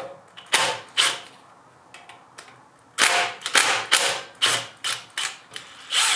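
Sharp metallic clicks of a hand ratchet undoing the small bolts of a camshaft bearing cap on a BMW N52 cylinder head. A couple of clicks come near the start, then after a pause a quicker run of clicks with a slight ring.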